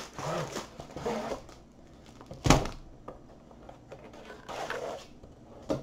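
Handling of a long cardboard box and a plastic-wrapped rolled canvas: rustling and sliding as the roll is drawn out, with one sharp knock about two and a half seconds in and more rustling near the end.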